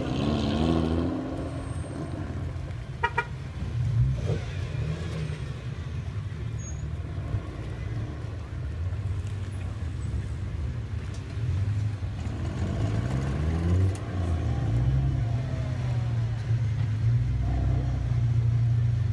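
Deep exhaust rumble from old Toyota sedans with loud aftermarket mufflers, a widened GX71 Cresta among them, driving off at low speed. The revs rise and fall near the start and again about two-thirds of the way through, with a short high beep about three seconds in.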